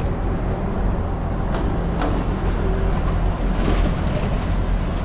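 Steady low rumble of road traffic on a city street.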